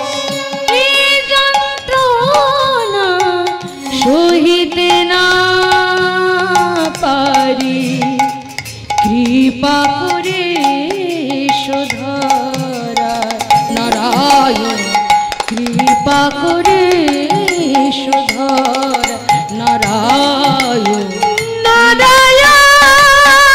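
Bengali devotional kirtan: a sung melody with gliding, ornamented pitch over hand-drum accompaniment. The music grows louder and fuller near the end.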